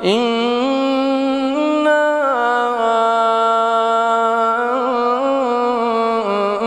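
Male Quran reciter chanting in tajweed style: one long drawn-out melodic phrase that rises at the start and then holds long notes, with small ornamental turns and steps in pitch.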